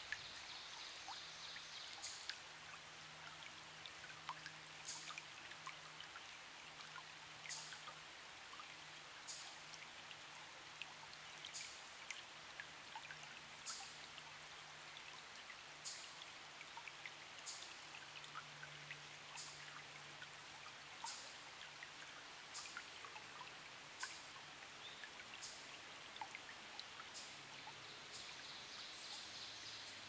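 Shallow forest stream trickling gently over stones, with a bird's short, high, falling call repeating about every two seconds.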